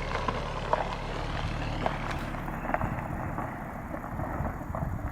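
Audi A4 2.0T's turbocharged four-cylinder running, fitted with a 3-inch catless downpipe, a steady hum with a few light clicks. The sound thins out about two seconds in.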